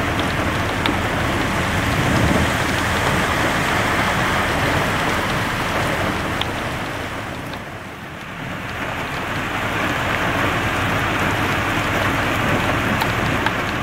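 Heavy rain pouring onto a flooded street: a steady, dense hiss of rain on standing water and pavement that eases briefly just past the middle, then comes back.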